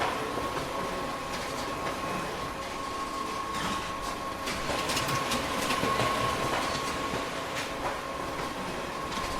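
Photocopier running a booklet-making job: a steady mechanical whir with a constant high hum and irregular sharp clicks.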